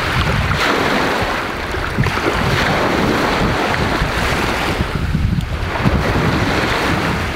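Lake waves washing steadily onto the shore, with strong wind buffeting the microphone in a constant low rumble.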